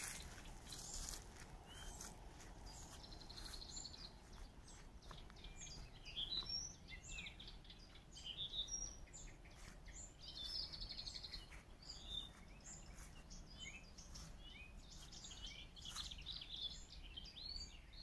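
Several songbirds singing and calling together, quiet: many short chirps and whistles overlapping, with a rapid trill about three seconds in and another about ten seconds in.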